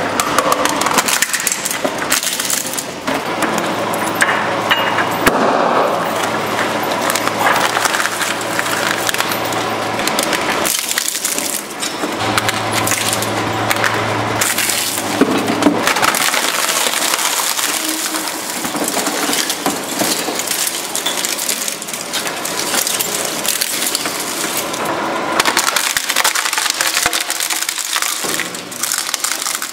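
Twin-shaft shredder crushing one object after another, with near-continuous crunching, cracking and splintering as phones and plastic break between the steel cutter discs. A low machine hum comes and goes underneath.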